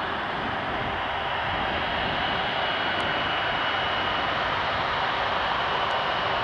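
Airbus A330-243's twin Rolls-Royce Trent 700 turbofans running at taxi thrust: a steady jet hiss with a high, even whine on top. The sound grows slightly louder as the airliner taxis closer.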